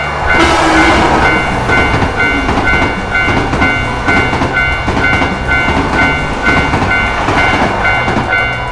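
Railroad crossing warning bell ringing a rapid, steady kan-kan ding, two to three strikes a second. A train rushes past through the crossing, its noise starting about half a second in.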